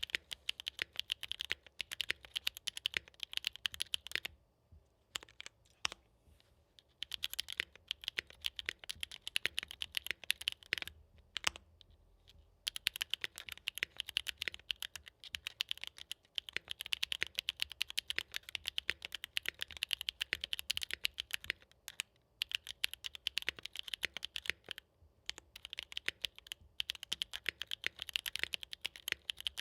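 Mechanical keyboard with factory-lubed Gateron Blizzard tactile switches in an aluminium plate, typed on fast and steadily: a dense run of crisp key clacks with a few short pauses, the occasional deeper knock of a stabilized key among them.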